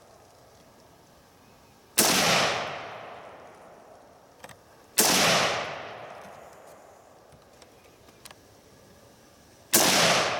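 Three single rifle shots from an Armalite SPR Mod1 AR-15 in 5.56, fired slowly as aimed shots while sighting in. Each shot is sharp and dies away over a second or two; the second comes about three seconds after the first, and the third about five seconds later.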